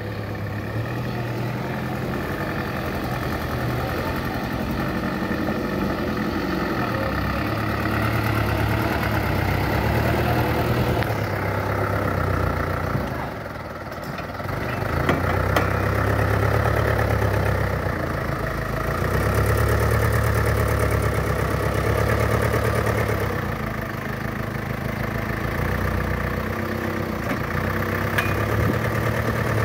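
Old light dump truck's engine running under load as it creeps loaded with gravel, revving up and easing off several times, with a brief dip about halfway through.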